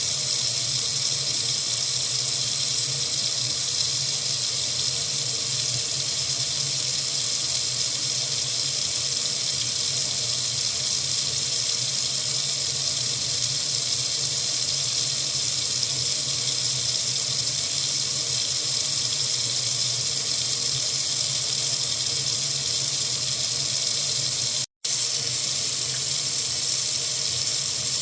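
Water faucet running steadily into a sink, an even rushing hiss, broken once near the end by a split-second gap of silence.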